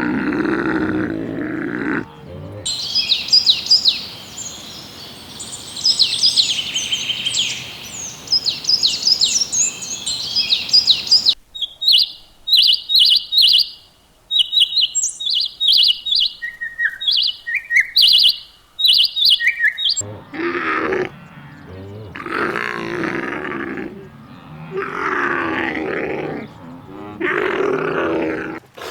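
Low, rough animal grunting calls, then a long stretch of small birds chirping and twittering. After that come repeated low grunts and bellows from a large animal.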